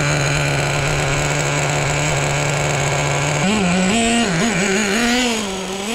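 Traxxas T-Maxx 3.3's two-stroke nitro engine idling steadily. About three and a half seconds in, its pitch rises and wavers up and down.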